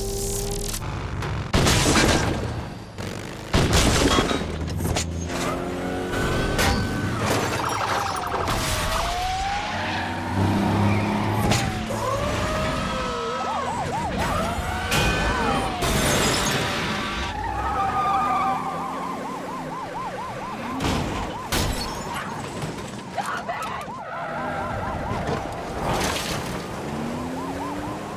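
Film chase soundtrack: police car sirens wailing and then yelping rapidly, mixed with engines, crashes and score music. Two loud crashes come in the first few seconds, and more impacts follow.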